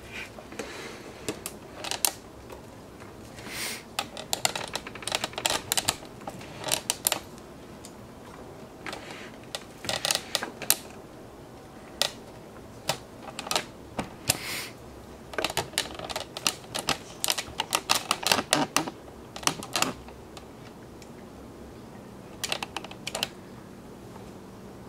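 Wooden spinning wheel clicking and tapping, in irregular clusters of quick sharp clicks with short pauses between.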